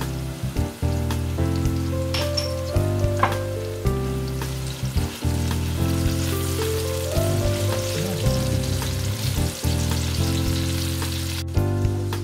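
Diced pumpkin and shallot frying in olive oil, a fine sizzle with a few crackles, while a spatula stirs them in the pan. Background music of sustained chords plays over it and is the loudest sound.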